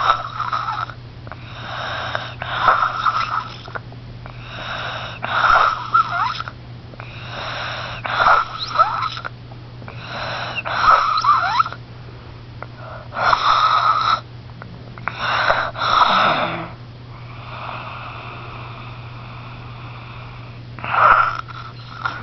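Snoring: wheezy, rasping breaths with a faint whistle, about one every two and a half to three seconds, then a longer pause before a last breath near the end. A steady low hum runs underneath.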